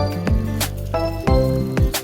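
Background music: an electronic beat with deep kick drums about twice a second, sharp percussive hits and sustained chords.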